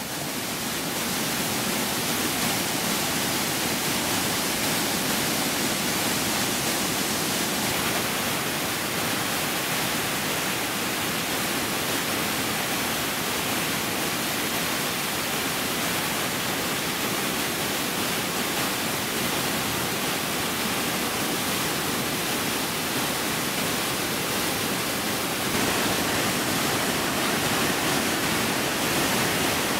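Swollen floodwater pouring over a dam and churning through rapids: a steady, heavy rush of water, a little louder for the last few seconds.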